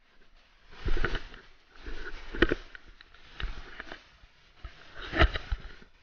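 Irregular rustling and thumps, about six in six seconds, as someone moves through wet rushes and long grass.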